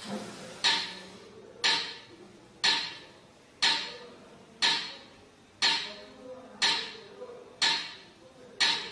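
A metronome ticking very evenly at about one click a second (60 beats per minute). Each click is sharp and rings briefly.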